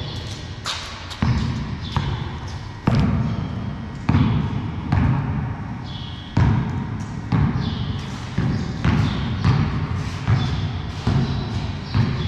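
A basketball bouncing on a concrete floor, dribbled in an irregular string of sharp bounces, one or two a second, that echo around a large empty concrete garage. A few short high squeaks come between the bounces.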